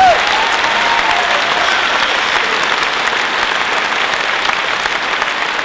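Audience applauding, a dense, steady clapping that eases slightly toward the end.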